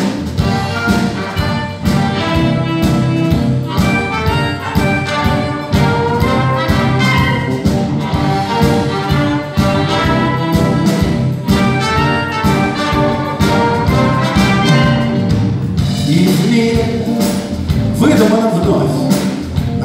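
Live rock band playing an instrumental break: a trumpet plays the lead line over electric guitar, bass guitar and drum kit. The trumpet stops near the end while the band plays on.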